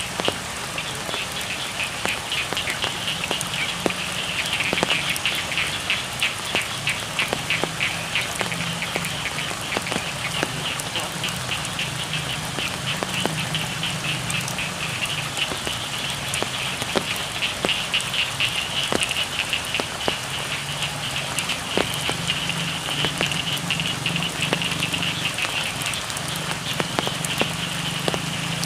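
Frogs calling in a dense chorus, a fast high pulsing trill over lower croaking, with rain pattering on the rice field.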